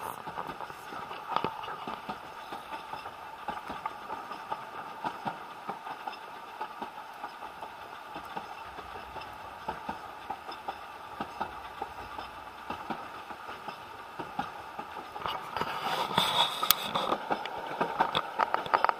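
Narrow-gauge steam railway carriage rolling along, heard from inside: a steady rumble with irregular wheel clicks and rattles. It grows louder near the end, with a brief high squeal about sixteen seconds in.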